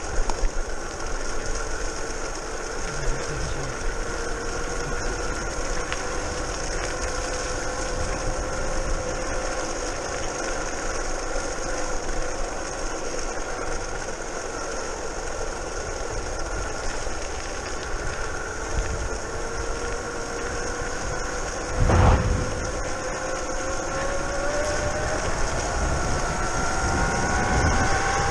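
Brushless outrunner motor of a modified electric scooter, driven by a VESC controller, giving a steady whine over a low rumble. A single thump comes about three quarters of the way in. After that the whine rises in pitch as the scooter speeds up near the end.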